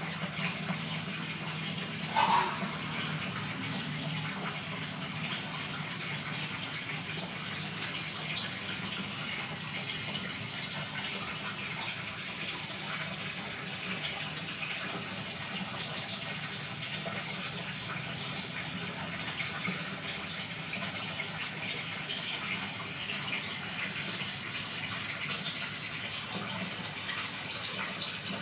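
Steady rush of moving water in an aquarium, with a low steady hum underneath and one brief louder burst about two seconds in.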